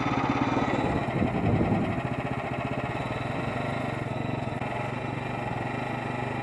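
Small gasoline engine of a Frontier OS23 portable bandsaw mill running steadily, with a brief swell about a second in.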